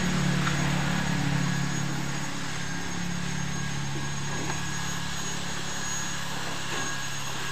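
Small pickup truck's engine running as the truck pulls away; its low hum is strongest for about the first two seconds, then drops and holds steady at a lower level.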